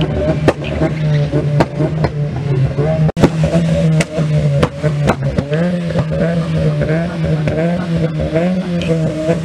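Car engine held at high, steady revs, broken by a string of sharp cracks, with voices talking in the background.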